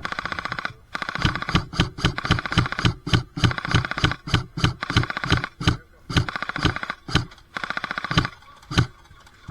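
Airsoft gun firing: a short full-auto burst, then a string of rapid single shots at about four a second, another brief burst, and a final single shot near the end.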